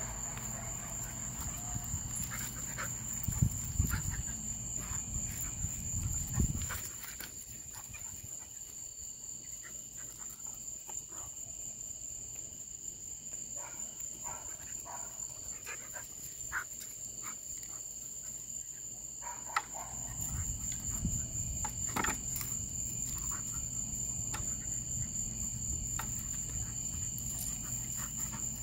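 A steady high-pitched drone of night insects, with scattered clicks and low scuffling thumps, loudest about three and six seconds in, as a dog and a kitten tussle in play.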